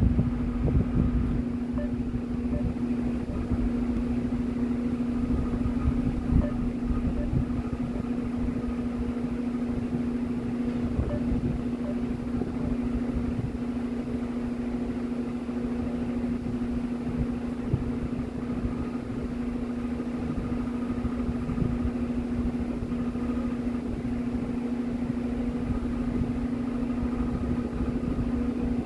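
A machine running with a steady hum: one constant low tone over a rumble, unchanging throughout.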